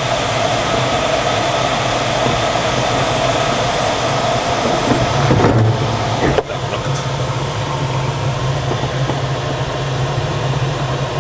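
Steady rush of airflow inside a DG-505 glider's cockpit in flight, with a low steady hum under it. A short knock about six seconds in, after which the level drops slightly.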